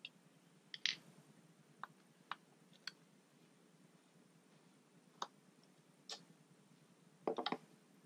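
Light, scattered clicks and taps of a small T6 Torx screwdriver working the fan screws inside a Mac Mini, with a quick run of several clicks near the end.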